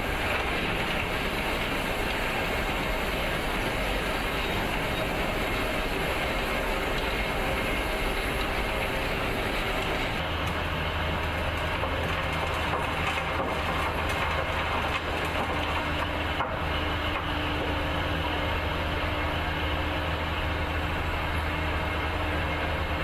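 Rotary cutter head of a tunnelling machine grinding into rock, a dense, harsh grinding noise. About ten seconds in it gives way to a heavy diesel machine running steadily with a low engine hum, while rock rides out on its conveyor.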